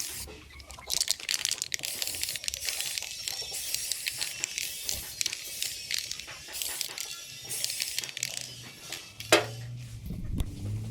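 Rough, irregular scraping and scrubbing on a steel tractor wheel rim, cleaning off rust and dirt, in many short strokes. There is one sharp knock about nine seconds in, and a low steady motor hum starts near the end.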